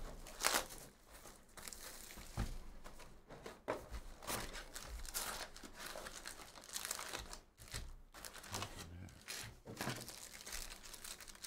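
Plastic shrink wrap crinkling and tearing as it is stripped off a trading-card hobby box, then foil-wrapped card packs rustling and crinkling as they are lifted out of the box and stacked.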